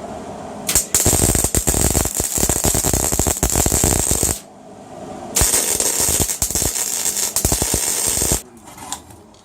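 Electric welding arc crackling in two bursts of about three to four seconds each, with a short pause between: tack welds fixing a piece of steel pipe in place.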